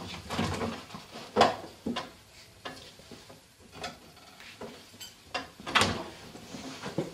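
Refrigerator door pulled open and things inside handled with light knocks and clinks, then the door shut, a series of separate sharp knocks with the loudest about one and a half and six seconds in.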